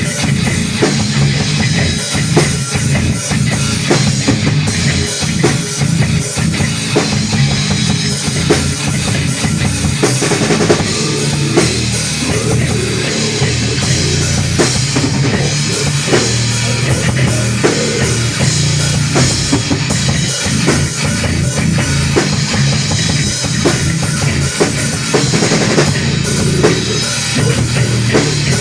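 Loud rock band playing live in an instrumental passage with no singing: drum kit with bass drum strokes and electric guitars.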